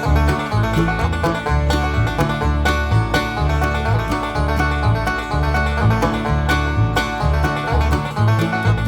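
Background music: upbeat bluegrass-style tune led by a plucked banjo over a steady bass line.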